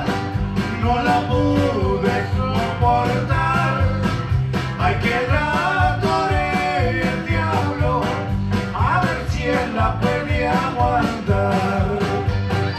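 Tex-Mex band playing an instrumental break live: button accordion and electric guitar melody over bass and drums, with a steady beat.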